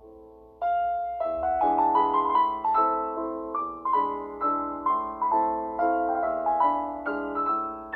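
Background piano music: a melody of struck notes with chords, each note fading after it is struck, coming in fully about half a second in.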